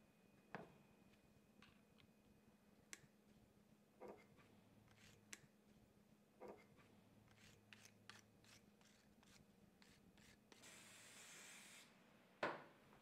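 Faint workshop handling sounds: scattered light clicks and rubbing from gloved hands working with a cleaning cloth and parts. A short hiss comes about eleven seconds in, followed by a louder knock.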